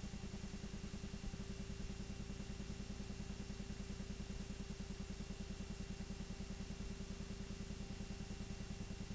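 8mm film projector running: a steady, rapid, even mechanical clatter with a constant hum.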